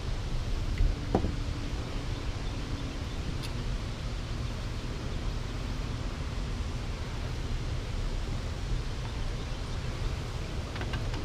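Steady noise of wind on the microphone and turbulent tailwater below a dam, a low rumble under a rushing hiss, with one small click about a second in.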